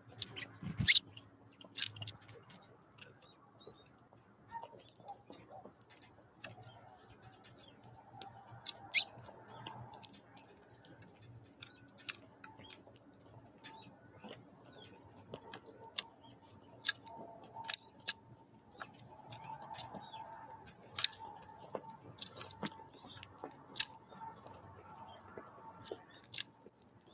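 Small wild songbirds at a feeding spot: scattered sharp taps and clicks, with occasional short high chirps.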